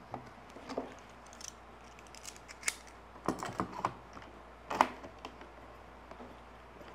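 Scattered light clicks and knocks as a bundle of thin wooden lattice bars is tapped into line and a small metal bar clamp is slid on and tightened around it, the sharpest knock coming about five seconds in.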